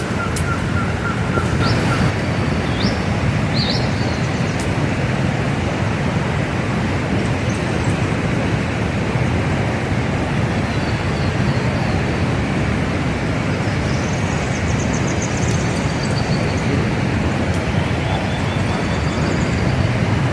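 Steady rush of river rapids, an even roar of water with a few short, faint high chirps over it.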